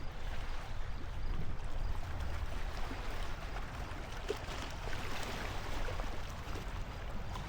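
Steady rush of flowing river water over a low rumble.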